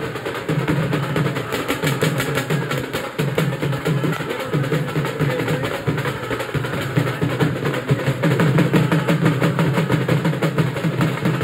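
Music with fast, dense drumming throughout.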